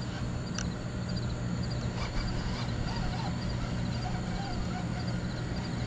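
Fishing reel being cranked to bring in a hooked fish, a steady grinding over a low hum, with a few faint bird calls.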